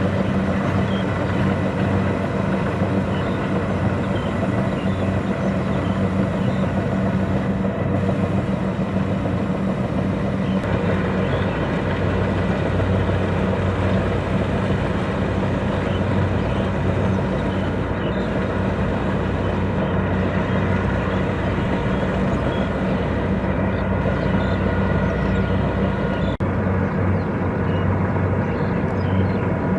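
Kubota DC-70 Plus rice combine harvester running steadily while harvesting, its diesel engine giving an even low hum under a broad mechanical noise.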